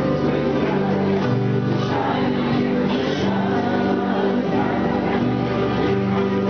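Live acoustic duo: a man and a woman singing into microphones to their own acoustic guitar accompaniment, holding long, sustained notes.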